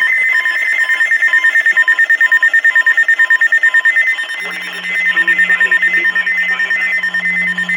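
Emergency Alert System alert tones: a loud, rapidly pulsing electronic signal with high steady tones. The signal changes a little past halfway, when a low steady hum joins it.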